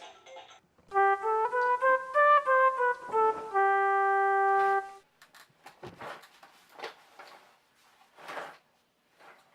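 Electronic tune from a baby activity center's toy station: a quick run of bright beeping notes that ends on one long held note, about four seconds in all. After it come scattered short plastic clacks and rattles as the toys are batted.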